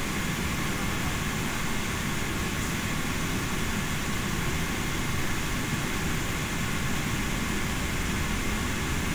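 Steady cabin noise inside an Airbus A380 taxiing: an even rumble and rush of the engines and air conditioning, with a faint steady high whine.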